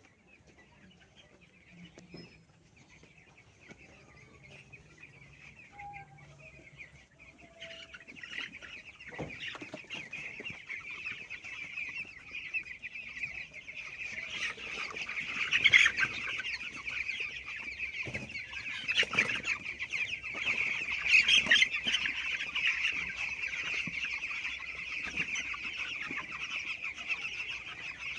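A flock of chickens clucking and calling together, faint at first, swelling about seven seconds in and louder from about halfway.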